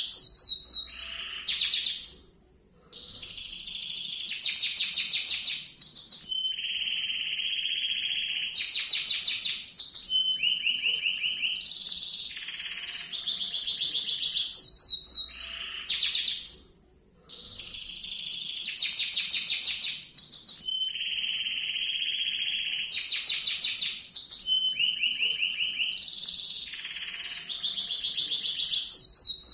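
Domestic canary singing a long rolling song: an unbroken run of rapid trills and rolls, some held on one pitch and some sliding, halted by two short pauses, about two seconds in and again halfway through.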